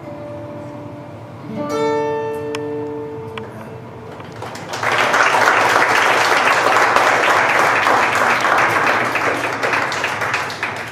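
Acoustic guitar playing the last notes of a song: a final chord struck about two seconds in and left ringing. A few seconds later an audience breaks into loud applause that carries on to the end.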